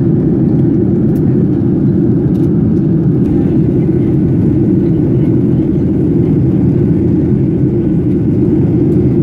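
Steady, loud cabin noise inside a Boeing 737 on descent: an even, low rush of turbofan engine and airflow noise.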